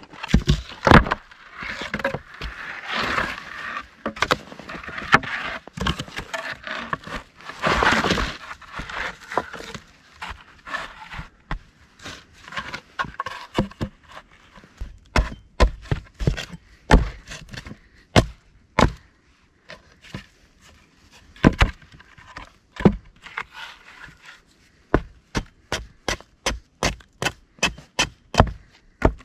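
Sawn wooden boards clattering and scraping as they are handled and laid down, then a series of sharp knocks of a tool striking wood, settling into an even run of about three strikes a second near the end.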